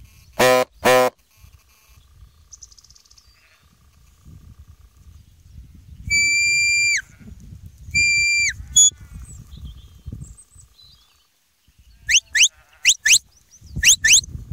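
Two short sheep bleats, then a shepherd's sheepdog whistle giving commands: two long steady high notes, each dropping at the end, and near the end a run of quick rising whistles in pairs.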